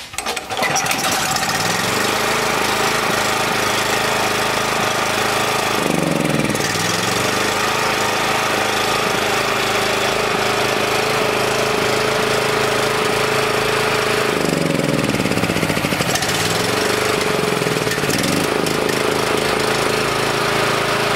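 Honda single-cylinder generator engine catching right after a recoil pull and running on choke, its speed dipping and recovering around six seconds in and again in the later part as carb cleaner is sprayed around the intake manifold. The speed changes point to air being sucked in there, which the mechanic takes for a possible crack in the head.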